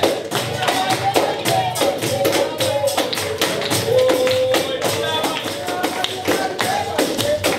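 Capoeira music: an even beat of percussion strokes, about four a second, with tambourine jingles and a melody over it.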